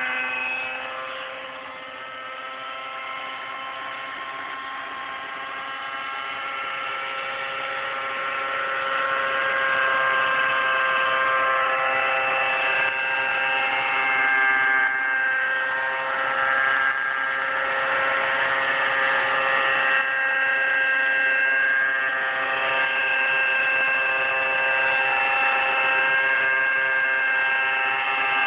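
Nitro-powered T-Rex 600 flybarless RC helicopter flying: its glow engine and rotors make a steady, many-toned whine. The sound is fainter about two seconds in and grows louder over the next several seconds, staying loud as the helicopter flies low and close.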